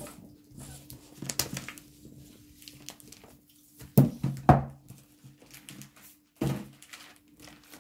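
Table-handling noises: a run of sharp knocks, clicks and rustles, the loudest pair about four seconds in and another knock near six and a half seconds, over a faint steady hum.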